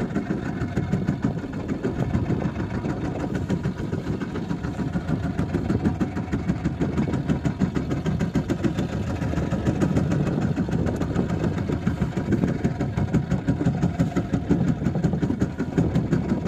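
Small fishing boat's engine idling steadily, a fast, even pulsing.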